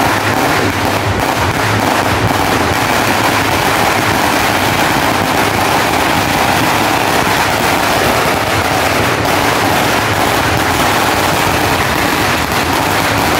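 A Sinturon ni Hudas firecracker belt, a string of thousands of small firecrackers, going off in a dense, unbroken rattle of rapid bangs.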